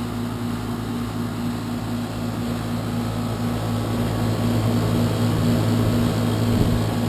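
A 12-year-old heat pump outdoor unit running loud: a steady low hum over even fan noise.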